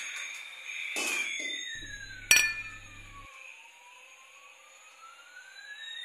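Hard plastic toy trains knocking and clacking as they are picked up and handled, with one sharp clack a little over two seconds in. Underneath, a thin high electronic tone splits into one pitch gliding up and one gliding down, which slowly come back together.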